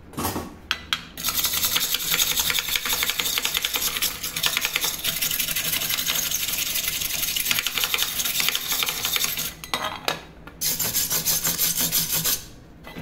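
Fast, repeated scraping strokes of a tool rubbing against a metal pressure-cooker lid, starting about a second in, breaking off briefly near ten seconds, then resuming for a couple of seconds more.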